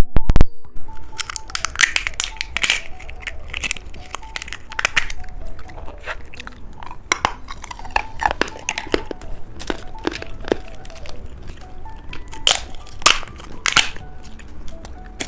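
Close-up crunching and chewing of candy, with sharp crunches every second or so and the loudest cracks right at the start, over soft background music.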